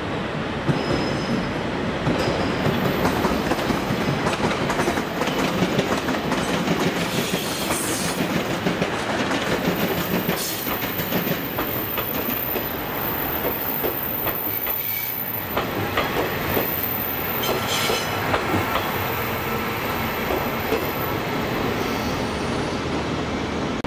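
KiHa 48 diesel railcar train running past slowly along a station track, its engines running and its wheels clacking over the rail joints. A thin high squeal rides over it through most of the passing.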